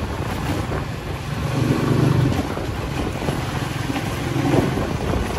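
Wind buffeting the microphone, with a low engine hum that swells about two seconds in and again near the end.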